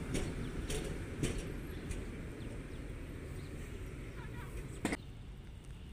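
SBB Ae 6/6 electric locomotive rolling away along the track: a low rumble that fades, with several sharp clacks from the wheels and a louder click about five seconds in.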